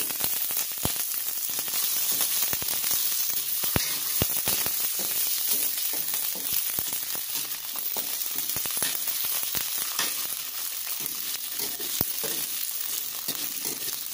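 Green beans sizzling as they stir-fry in a little hot oil, a steady hiss with crackles and a few sharp clicks.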